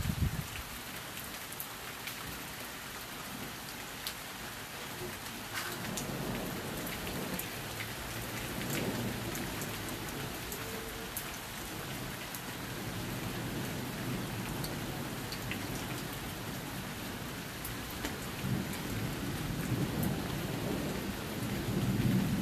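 Steady heavy rain from a thunderstorm, with single drops ticking close by. Low rolling thunder comes in about five seconds in and rumbles on, swelling again near the end.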